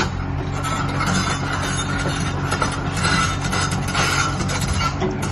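A JCB JS220L tracked excavator's diesel engine running steadily, with irregular metallic clanking and a squeal that swells and fades, typical of steel tracks as the machine travels.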